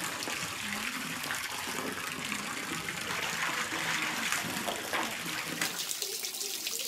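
A stream of water pouring steadily into a shallow inflatable pool as it fills, with a child's hands and feet splashing in the water.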